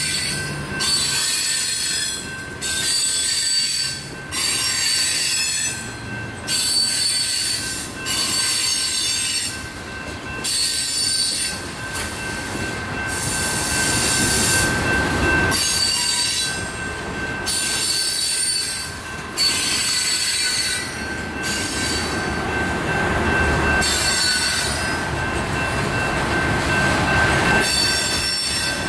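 Coal hopper cars of a BNSF unit coal train rolling past, wheels and rails giving a steady high-pitched squeal over the rolling rumble. The sound swells and dips about every one and a half to two seconds as each car goes by.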